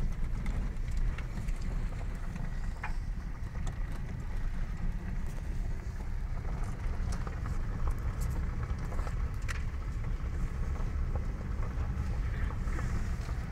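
Vehicle driving on a dirt and gravel road, heard from inside the cabin: a steady low rumble of engine and tyres, with a few scattered faint clicks.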